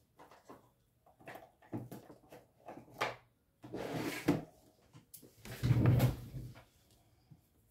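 Things being handled and set down on a desk while a letter is made: a run of light clicks and rustles, with a louder, heavier knock about six seconds in.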